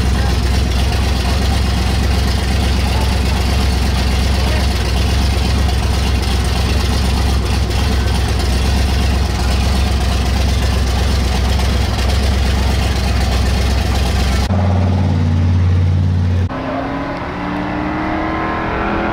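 A race car's engine idling loudly with a fast, even pulsing rumble. About fourteen seconds in, this cuts off sharply and gives way to a steadier engine hum, then a car engine accelerating with a rising note near the end.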